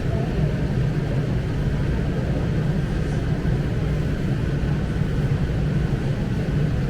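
Wind buffeting the microphone: a steady low rumble with a constant hiss above it.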